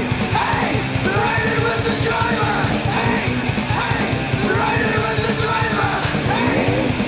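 Loud rock music with shouted vocals over a driving drum beat.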